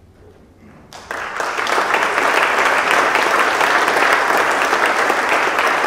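Congregation applauding, the clapping starting suddenly about a second in and carrying on steadily.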